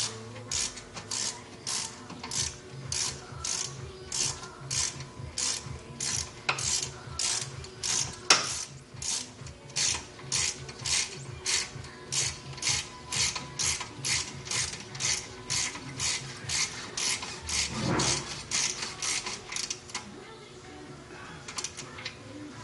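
Hand ratchet wrench being worked on a brake caliper bolt, with a short burst of pawl clicks on each back-swing, about two a second. There is one sharper metal knock about eight seconds in, and the ratcheting stops about twenty seconds in.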